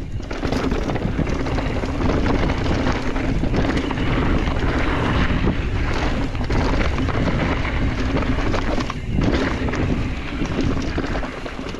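Wind blowing across the camera microphone, with the mountain bike rattling and knocking steadily as it rolls over rough trail.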